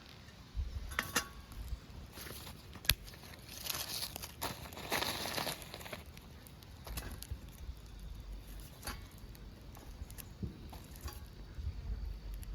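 Rustling and crinkling handling sounds with scattered clicks, one sharp click about three seconds in and a louder rustle a little after, over an intermittent low rumble.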